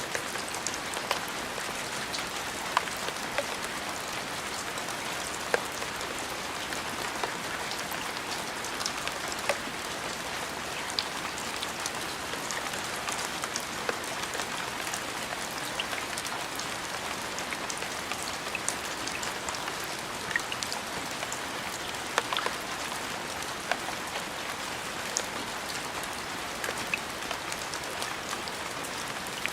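Steady rain falling, with separate louder drops ticking at irregular moments.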